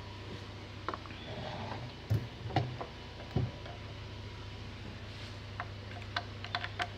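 Scattered clicks and light knocks of a screwdriver working on metal screws while the casing bolts of an active subwoofer amplifier are undone, with a quick run of small clicks near the end. A steady low hum runs underneath.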